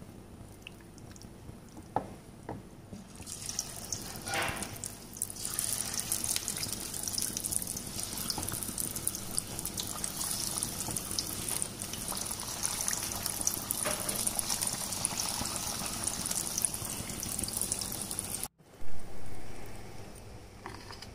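Marinated chicken pieces sizzling and crackling as they deep-fry in hot oil, starting about three seconds in and running steadily. Near the end the sizzling cuts off abruptly and a single loud thump follows.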